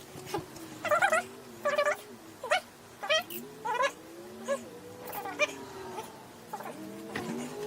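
Capuchin monkey giving a series of short, high, squealing calls, roughly one a second, growing fainter toward the end.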